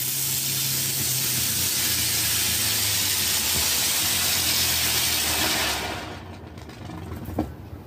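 A small novelty ground firework burning on the snow, spraying sparks with a loud, steady hiss that dies away about six seconds in as it burns out.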